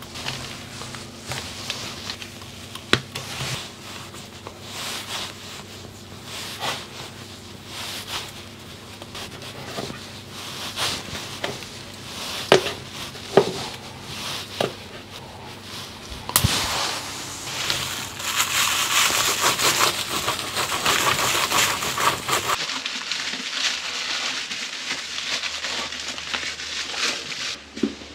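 Gloved hands working electrical cable in a chased-out wall. Irregular clicks and knocks throughout, with a few seconds of dense scratchy noise about two-thirds of the way through.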